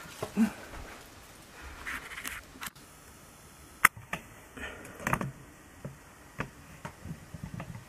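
Camera handling noise: a few quiet clicks and faint scrapes, with one sharp click about four seconds in.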